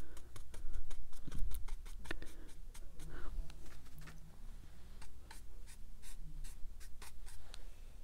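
A paintbrush loaded with paint being tapped: a run of irregular light taps and clicks, thickest in the first few seconds and thinning out after.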